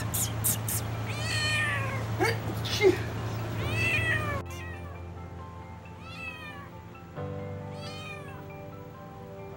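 A white mother cat meowing repeatedly, several drawn-out rising-and-falling meows, while she is held on her back for an ultrasound scan of her belly. Background music comes in about halfway through.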